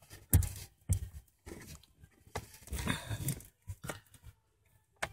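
Irregular rubbing, scraping and clicking as a rubber O-ring is worked by hand onto the heater core's coolant pipe fitting.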